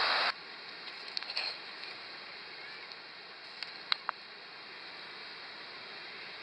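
Surf washing onto a sandy beach as a steady hiss of noise, loud at first and then cutting suddenly to a quieter wash, with a few faint clicks about one second and four seconds in.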